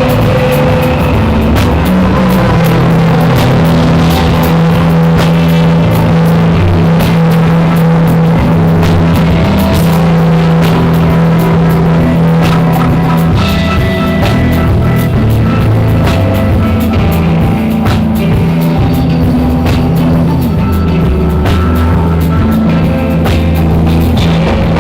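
Live band playing a loud, free-form rock jam: drum kit hits over long, held low notes.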